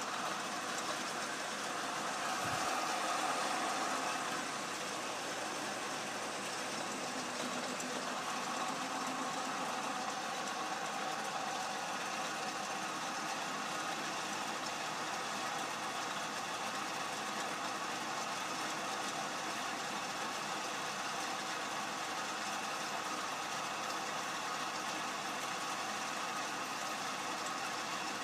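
Atlas 10-inch turret lathe running steadily, its spindle turning half-inch steel bar while the tools cut a V-groove bevel and part the piece off. The sound is a little louder for a couple of seconds near the start.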